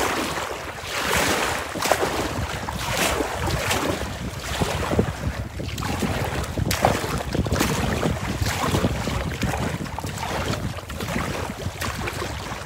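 Wind buffeting the microphone over choppy lake water, with waves and paddle water splashing against a plastic kayak, in repeated surges roughly once a second.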